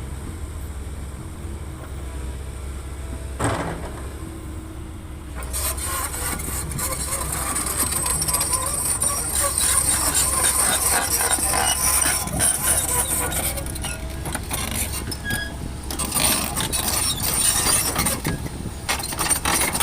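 Excavator's diesel engine running steadily under load, with a long gritty clatter of laterite stone and soil scraping and pouring from about five seconds in.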